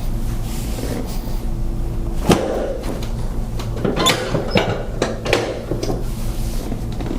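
A few short knocks and clicks over a steady low hum: one about two seconds in, then a cluster around four to five and a half seconds.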